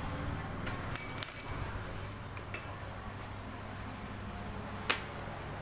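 Metal tools and hardware clinking and tapping as they are handled: a few sharp clinks about a second in, one around two and a half seconds, and a single sharp click near the end, over a steady low hum.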